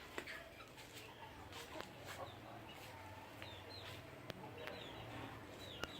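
Chickens calling faintly: short, high chirps that slide down in pitch, scattered every second or so, with a few sharp clicks in between.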